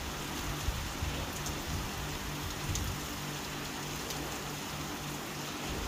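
Rain falling steadily, with a few faint sharp drip taps.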